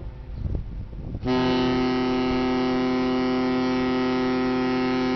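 Ship's horn sounding one long, steady blast that starts about a second in after a low rumble and cuts off sharply: the whistle a ship sounds on departure.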